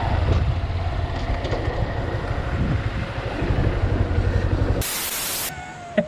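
Honda Hornet motorcycle riding along with its engine running under a heavy, fluttering rumble of wind on the microphone. Near the end this gives way to a brief loud hiss of about half a second.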